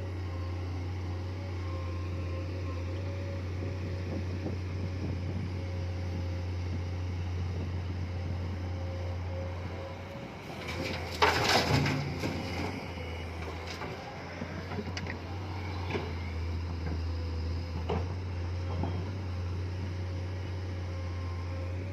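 Komatsu PC210 excavator's diesel engine running with a steady low drone. About halfway through comes a loud burst of clattering that lasts a second or two, followed by a few single knocks.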